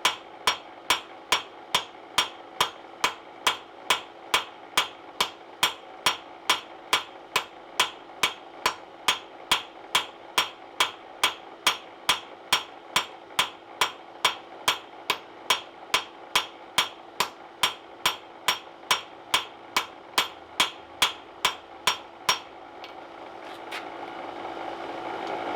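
Hand hammer striking steel on an anvil in an even rhythm of about two ringing blows a second, forging a ball punch. The blows stop a few seconds before the end, and a steady hum grows louder.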